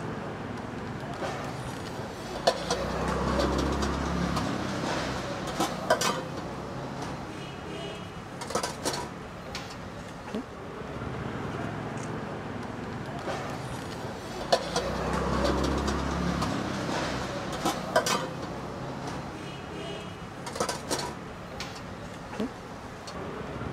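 Food-stall counter sounds: a few sharp clicks and knocks of plastic squeeze bottles and utensils against a stainless-steel counter, over steady street background noise and a low murmur of voices.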